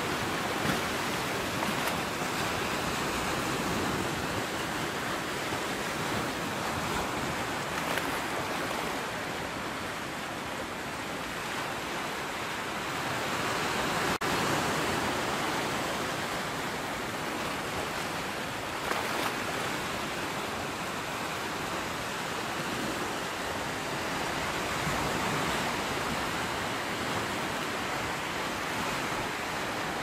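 Sea surf: a steady rush of waves that slowly swells and eases.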